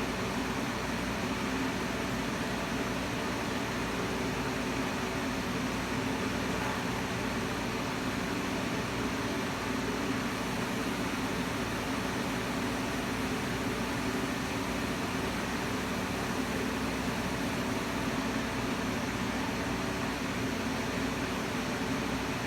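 Steady hiss with a low hum underneath, unchanging and with no distinct events.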